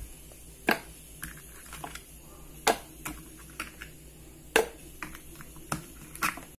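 Ice cubes dropped one at a time into a plastic blender jar of passion-fruit pulp, making about a dozen sharp clicks and clunks at irregular intervals, with a few louder knocks among them.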